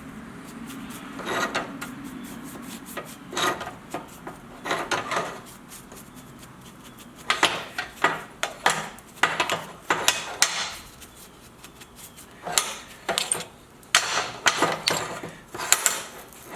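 Irregular metal clinks and knocks, with some rubbing, from small forged iron pieces and tools being handled and worked, in clusters of a few quick strikes at a time.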